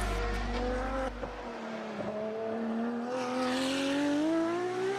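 Ferrari racing car's engine on track, its note holding and dipping slightly, then rising steadily in pitch from about halfway as the car accelerates.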